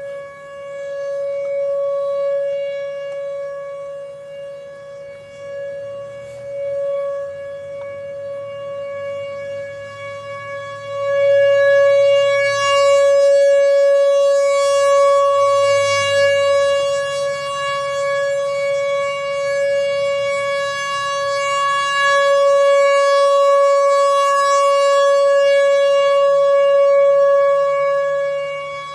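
Whelen 4004 electronic outdoor warning siren sounding a steady, unwavering tone, its loudness swelling and fading in slow waves. It is the regular monthly test of the outdoor warning system.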